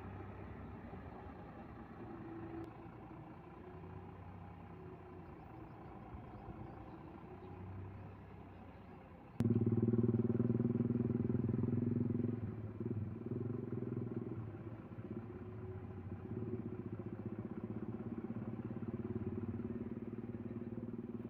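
Diesel engine of a UD Trucks Quester truck idling steadily. About nine seconds in the sound cuts abruptly to a louder engine running steadily.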